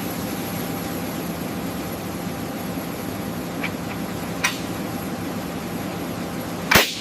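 Steady drone of a running engine with an even hiss over it. Two faint clicks come in the middle, and a short loud burst comes near the end.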